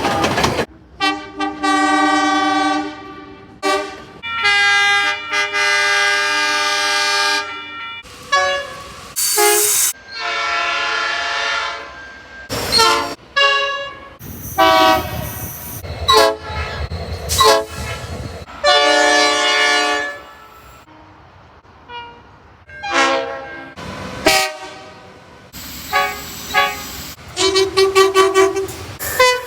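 Locomotive air horns: a string of blasts from several different trains cut one after another, some short toots and some held chords of a second or more.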